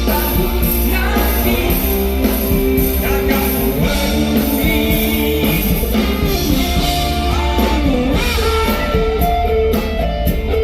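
A live rock band playing a song with singing, electric guitar and drums, with a heavy bass.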